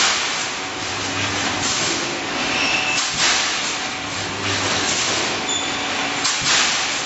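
Automatic rebar mesh welding machine running through its cycle: a steady mechanical din with a hissing surge about every one and a half to two seconds and a low hum between the surges.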